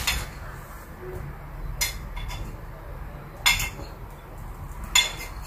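Kitchenware clinking: about five short, sharp knocks of dishes and utensils against a frying pan and plates, a second or so apart, over a low steady hum.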